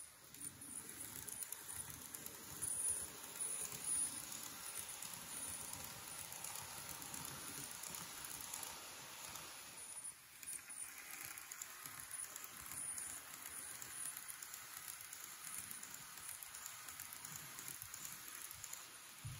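Model trains running on a tabletop layout: a steady rolling rattle of small wheels on the track with a faint motor whir, dipping briefly about ten seconds in.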